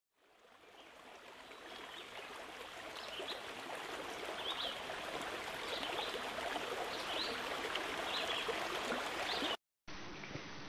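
Faint flowing-water noise, like a stream, fading in over the first couple of seconds, with short high chirps every second or so. It cuts off suddenly near the end and gives way to a fainter, duller hiss.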